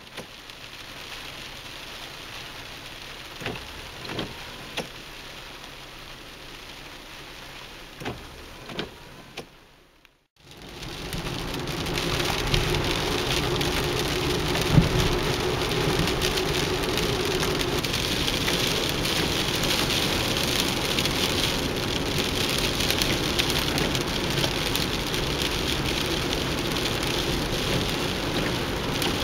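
Rain heard from inside a car. At first it is lighter, with a few sharp taps of drops. After a sudden break it turns into a louder, steady noise of rain on the windshield and body, mixed with the car's rumble on the wet road.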